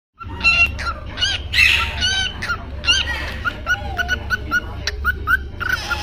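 A clutch of parrot chicks calling together: rapid, repeated short chirps, with a few harsher rasping squawks mixed in.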